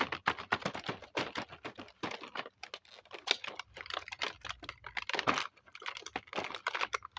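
Small plastic miniature toy kitchen pieces being handled: a quick, irregular run of light clicks and taps, with some rustling between them.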